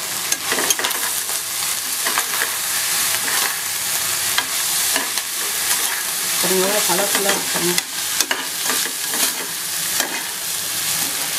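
Rice and diced capsicum frying in an aluminium pressure-cooker pot with a steady sizzle, while a metal spoon stirs and tosses it, clicking and scraping against the pot now and then.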